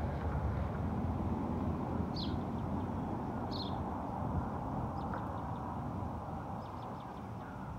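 A bird's short, high, falling chirps, repeated every second or so, over a steady low outdoor rumble.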